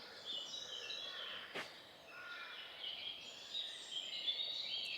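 Birds singing in the woods: a run of short, high warbling phrases, with one sharp click about a second and a half in.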